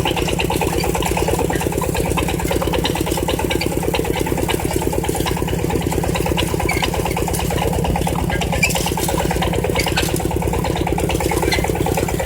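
Walking tractor's engine running steadily with a rapid, even firing beat while ploughing.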